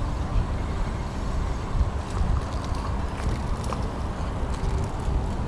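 Wind buffeting the microphone, a low unsteady rumble, with a few faint ticks between about two and four seconds in from the ultralight spinning reel as a small fish is wound in.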